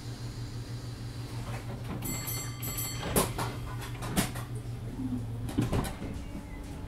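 Inside a Class 507 electric multiple unit standing at a station, with a steady low hum from its onboard equipment. About two seconds in, a door-warning tone sounds for about a second. Then the sliding doors shut with two loud thuds a second apart, followed by a few more clunks near the end as the train is about to depart.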